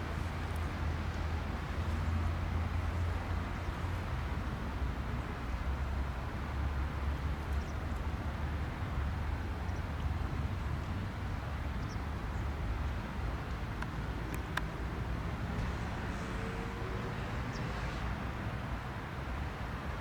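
Steady roar of jet engines, the Boeing 737-400's CFM56 turbofans, with a strong low rumble and no clear rise or fall.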